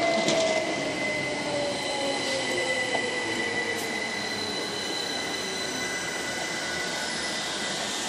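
Southern Class 377 Electrostar electric multiple unit slowing into the platform. Its motor whine falls in pitch over the first few seconds over the rolling of wheels on rail, with a steady high-pitched squeal as it brakes.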